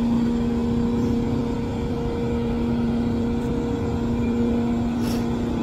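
Ro-ro car ferry's engines running with a steady low hum as the ship gets under way to leave its berth.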